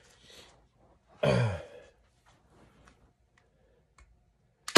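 A man's sigh about a second in, falling in pitch, then a single sharp snap of a staple gun driving a staple through a beaver pelt into a plywood board near the end.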